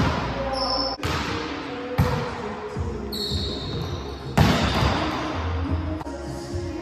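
A volleyball being struck in a gymnasium: several sharp slaps of hand on ball that echo around the large hall, with short high squeaks of sneakers on the hardwood court.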